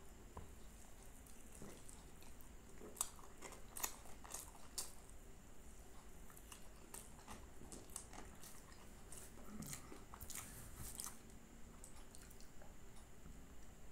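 Close-up biting and chewing of crispy fried snacks, with a few sharp crunches about three to five seconds in and a cluster of softer crunches around ten seconds in.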